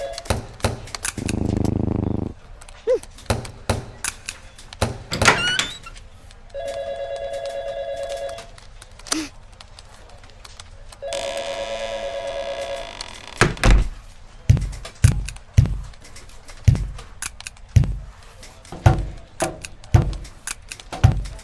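Sound effects: a steady electronic ringing tone sounds three times, about two seconds each, among scattered knocks and thuds. In the second half comes a quick run of heavy thumps.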